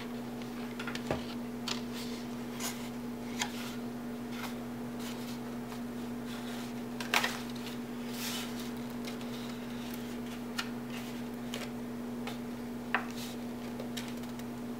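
Stiff card stock petals rustling and crackling as they are pressed and held together by hand, with scattered light ticks and one sharper crackle about seven seconds in, over a steady low hum.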